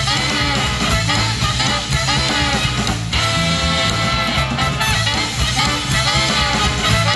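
Live band with a horn section of saxophones and trumpets over a drum kit, playing an upbeat instrumental passage with a steady beat; about three seconds in the horns hold a sustained chord.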